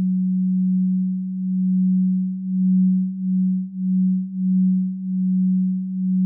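A low, pure electronic sine tone held on one pitch, swelling and dipping in loudness every second or so.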